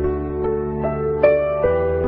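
Background music of gentle plucked notes over held chords, a new note sounding about every half second.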